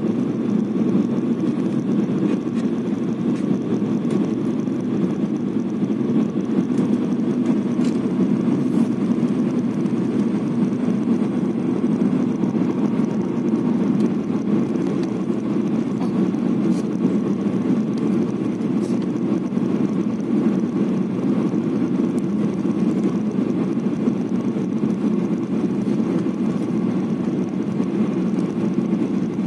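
Steady drone inside a jet airliner's cabin on approach to land: engine and airflow noise, even and unbroken.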